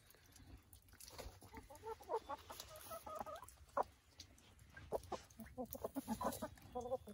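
A small flock of backyard hens making many short, low clucks while pecking at cracked corn scattered on straw.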